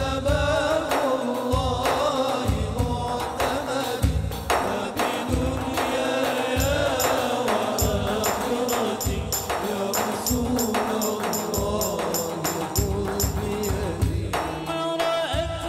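Instrumental interlude of an Islamic devotional song played by a hadroh ensemble: an electronic keyboard melody over a steady hand-drum and goblet-drum rhythm. A quick, bright ticking joins for several seconds in the middle.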